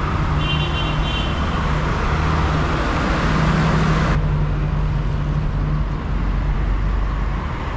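City street traffic: a steady road noise of passing cars with a low engine hum, and a brief high squeal about half a second in.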